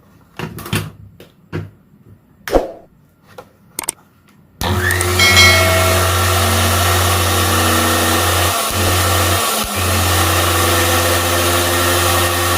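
A few light clicks and knocks of handling, then a mixer grinder's electric motor switched on. It spins up with a brief rising whine and runs steadily at full speed, with two short dips near the end.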